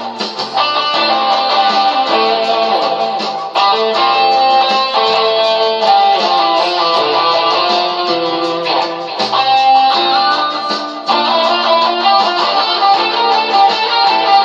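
Electric guitar playing an improvised lead by ear over a metal backing track, with bass and chords underneath.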